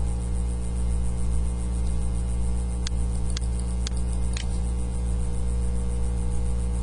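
Steady electrical mains hum, with four sharp clicks about half a second apart near the middle.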